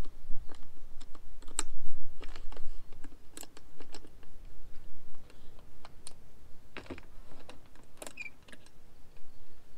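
Scattered, irregular clicks and knocks of a hard-shell rooftop tent on a ute's roof rack being handled and worked by hand, with a low rumble under the first few seconds.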